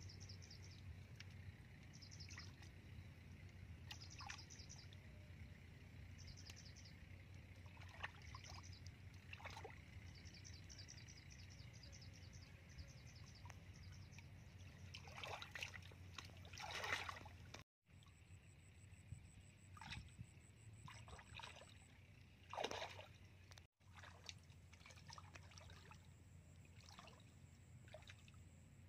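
Faint splashing and sloshing of shallow muddy water as hands grope inside a bamboo plunge basket, loudest about halfway through and again about two-thirds in. A bird chirps now and then in the first half.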